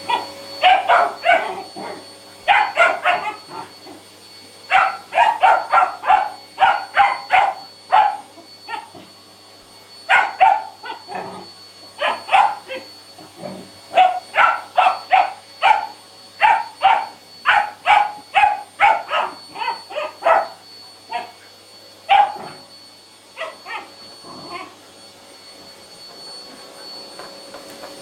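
Three-month-old border collie puppy barking and yipping at a vacuum cleaner, in quick runs of about three or four barks a second with short pauses between runs. The barking thins out to a few yips about three quarters of the way through.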